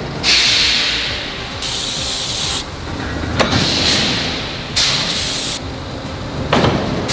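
Closed-die forging of a hot steel bow shackle: loud bursts of hissing start and stop, and two heavy blows of the forging press or hammer land about three seconds apart.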